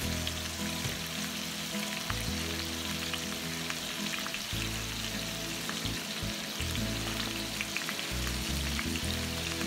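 Hot oil sizzling steadily with fine crackles and small pops as marinated tilapia pieces shallow-fry in a pan. Soft background music is under it.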